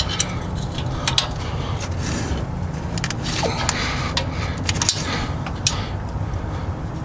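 Hand wrench clinking on the loose exhaust header bolts of a 1994 Chevy C1500 as they are snugged: a few short, scattered metallic clicks over a steady low hum.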